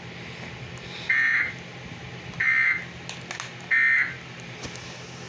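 Emergency Alert System end-of-message code on a NOAA Weather Radio broadcast: three short, identical bursts of shrill two-tone digital data, about a second and a bit apart, marking the end of the alert. They sound over a steady background hiss from the radio.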